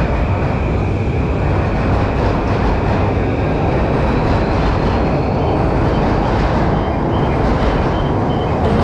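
Electric commuter train running alongside a busy station platform: a steady rumble with a faint whine that slowly rises in pitch, under the general hubbub of the platform.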